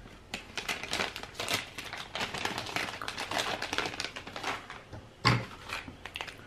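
Rapid, irregular clicking and rustling of accessory packaging being handled, ending with a single louder knock about five seconds in.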